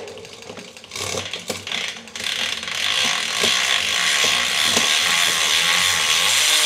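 Bicycle drivetrain spinning on a work stand: the chain runs over the cassette while a SRAM GX Eagle Transmission electronic rear derailleur shifts through successive gears, with separate clicks as it changes. The chain whir gets louder about two seconds in and then holds steady.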